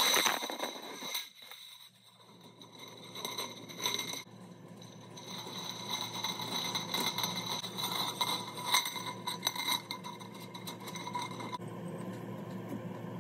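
Coiled kiln heating-element wire scraping and clinking lightly against the firebrick as it is worked into the element grooves, in irregular small clicks and rasps. A sharp click comes at the very start.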